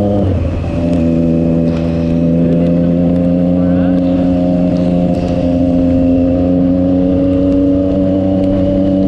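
Triumph Daytona 675's three-cylinder engine pulling the bike along at road speed. It shifts up a gear just after the start, with a brief dip and a small drop in pitch, then holds a steady note.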